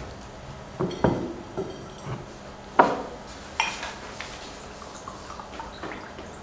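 Drinking glasses and a water bottle being handled on a table: a series of knocks and clinks, a few with a brief ringing, the loudest about three seconds in.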